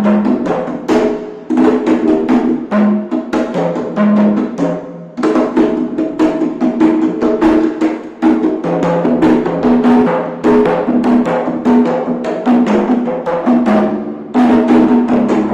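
Congas and a djembe played by hand in a fast, continuous rhythm: dense slaps and strokes with short, ringing open tones.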